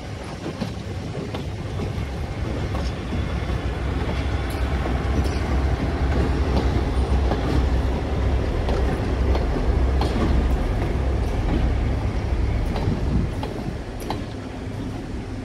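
A 1940 EMD E5A diesel-electric passenger locomotive and its stainless-steel passenger cars passing close by, wheels clicking over the rail joints. The locomotive's twin 12-567A diesel engines add a deep rumble that swells to its loudest around the middle as the locomotive goes by, then eases off near the end.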